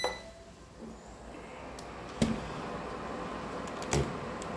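Induction cooktop: a short beep from its control panel as a button is pressed, then its cooling fan running with a steady whir. A sharp click about two seconds in and another near the end.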